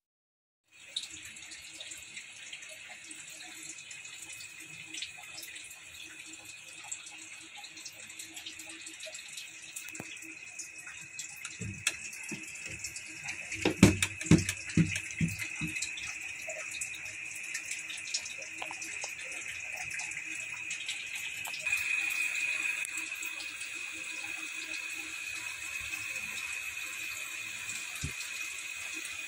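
Kitchen handling sounds over a steady hiss: a cluster of knocks and clatter about halfway through as whole tilapia and pieces of eggplant are handled in a cooking pan, and one more knock near the end.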